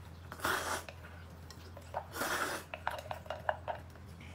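A person eating noodles from a bowl with chopsticks: two short noisy slurps, then a run of light clinks of chopsticks against the bowl.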